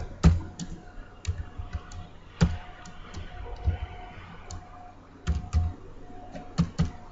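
Typing on a computer keyboard: separate key clicks at an uneven, unhurried pace.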